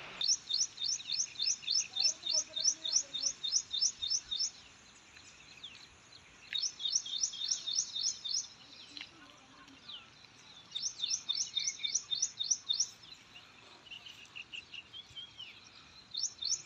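A bird calling in repeated trains of rapid, high chirps, about four a second, each run lasting two to four seconds with short pauses between, over faint outdoor background noise. A few fainter, lower bird calls come in near the end.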